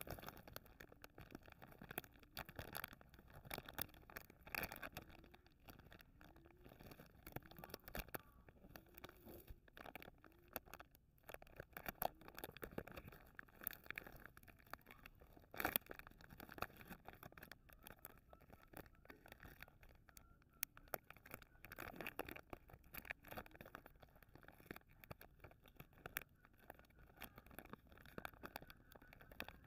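Plastic chocolate-bar wrapper crinkling and tearing as fingers peel it open, with quiet, irregular crackles.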